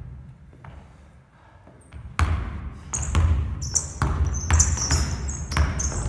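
A basketball being dribbled hard on a wooden gym floor, the bounces starting about two seconds in, with sneakers squeaking as the player drives.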